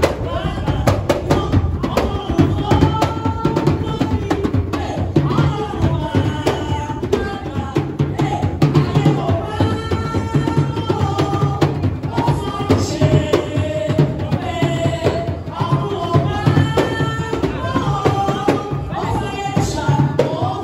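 A woman singing into a microphone, amplified, over live hand drumming that keeps a steady beat.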